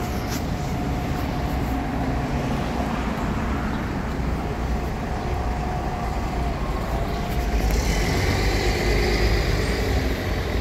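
Road traffic: engines of an articulated city bus and cars idling and creeping in a queue at a traffic light. The noise grows louder about eight seconds in.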